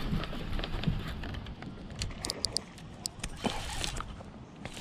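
Low wind rumble on the microphone with scattered clicks and knocks from fishing gear being handled in a kayak; a quick run of short high ticks a little past two seconds in.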